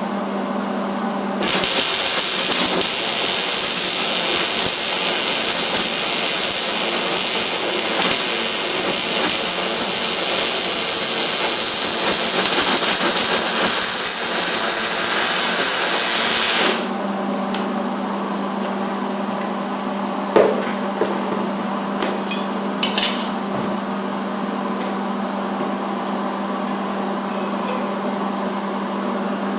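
Welding arc burning steadily on steel roll-cage tubing while a butt joint is fully welded: a loud, even hiss that starts about a second in and cuts off suddenly after about fifteen seconds. Afterwards a steady low hum remains, with a few light clicks and clinks.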